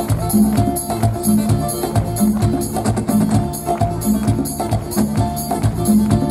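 Live band playing with a steady beat: electric bass, hand percussion such as congas, and acoustic guitar.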